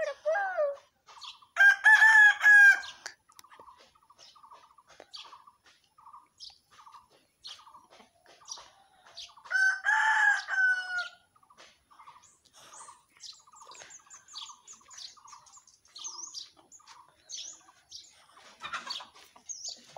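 A rooster crowing twice, about eight seconds apart, each crow lasting a little over a second. Small birds chirp faintly and repeatedly in between.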